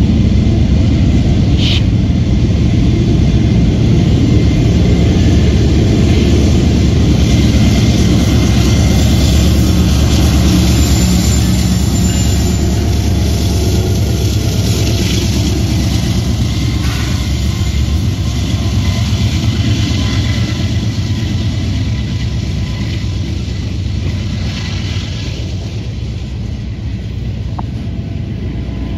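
Diesel freight locomotives running as they pass, then the steady low rumble of freight cars, covered hoppers and tank cars, rolling by on the rails. The sound grows gradually quieter over the last several seconds.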